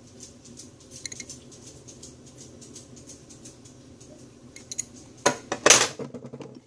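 Metal hand tools clinking and clattering against each other as they are handled, with a few faint clicks and then a louder run of clatter about five seconds in.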